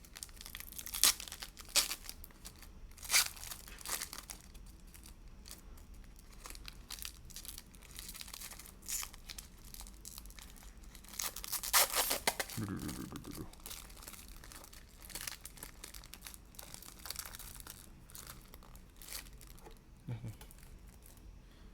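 Foil trading-card pack wrappers being torn open and crinkled by hand, a series of short sharp rips and rustles, the loudest about one, two, three and twelve seconds in.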